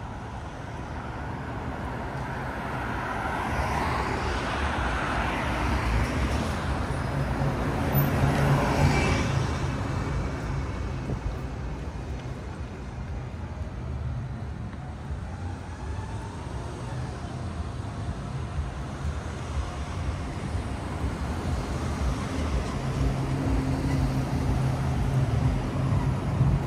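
Street traffic: cars and other vehicles driving past close by, with a low engine hum. The loudest vehicle passes about eight or nine seconds in, and another engine grows louder near the end.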